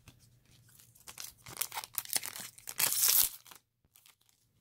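Foil trading-card pack wrapper and cards rustling and crinkling as they are handled, in uneven bursts with the loudest crinkle about three seconds in.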